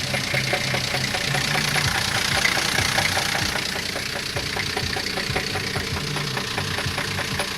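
SUV engine idling with a steady, rapid knock, several strikes a second; the men take it for a bearing shell about to spin.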